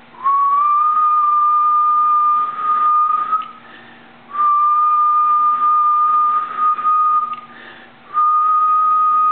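A man whistling three long, steady notes at the same pitch, each held about three seconds with short breaks between them. Each note is a nearly pure tone that slides up slightly as it starts.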